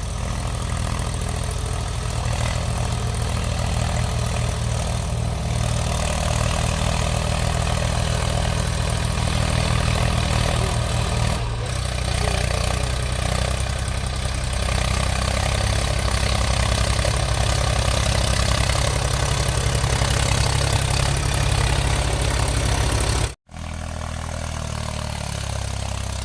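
Heavy diesel engine running steadily with a low, even rumble; its note shifts about eleven seconds in, and the sound cuts out for a moment near the end.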